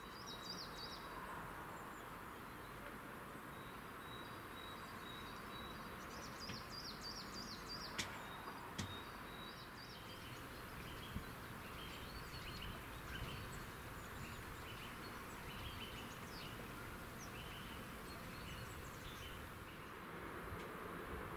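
Quiet outdoor ambience: a steady background hiss with small birds chirping and twittering now and then. A couple of sharp clicks stand out, about eight and eleven seconds in.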